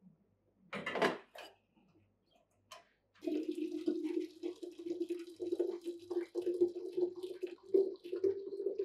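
Tea poured in a steady stream into a glass carafe, starting about three seconds in, then topped up with water from a kettle; the pour's ringing tone rises slowly in pitch as the carafe fills. A short, louder noise comes about a second in.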